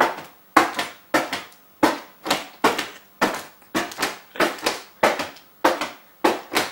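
A steady run of sharp knocks or hits, about two a second, each dying away quickly.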